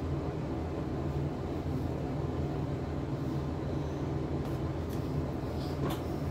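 Steady low hum, with a few faint light clicks of plastic packaging being handled near the end.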